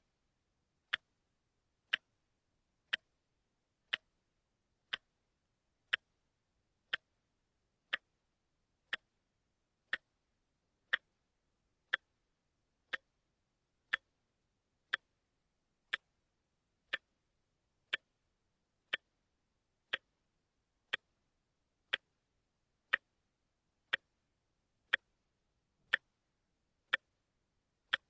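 Mechanical wristwatch ticking, picked up with a contact microphone: one short, sharp tick every second, evenly spaced, with silence in between.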